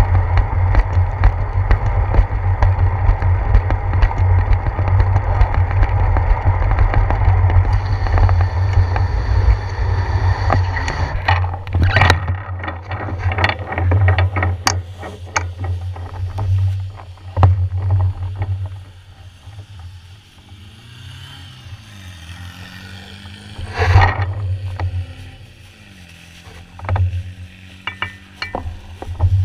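Bicycle riding noise picked up by a handlebar-mounted GoPro: wind buffeting the camera and tyres hissing on a wet concrete path, then a run of rattles and knocks as the bike goes over bumps. Later the noise drops sharply as the bike slows, broken by one loud knock.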